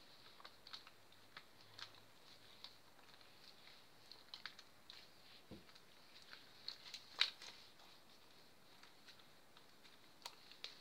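Faint, scattered sticky clicks and pops of a white PVA-glue-and-toothpaste slime being stretched and kneaded by hand, with one louder pop about seven seconds in.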